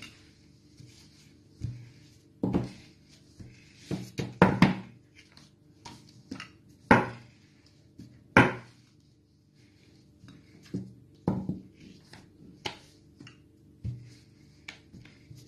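Rolling pin working taco flatbread dough on a wooden board, with irregular knocks and thuds as the pin bumps the board, about a dozen of them, the loudest near the middle. A faint steady hum runs underneath.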